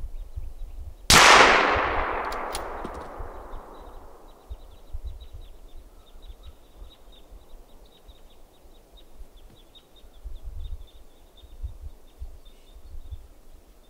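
A single rifle shot about a second in, its report fading away over about three seconds, followed by a couple of sharp clicks.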